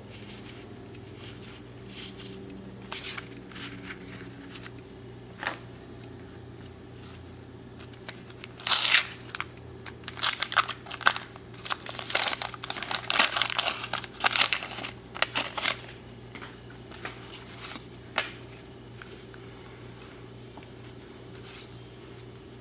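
A 1990 Donruss wax-paper baseball card pack being torn open by hand: a run of loud crinkling and tearing from about 8 to 16 seconds in. Before and after, a few soft clicks of cards being handled, over a faint steady hum.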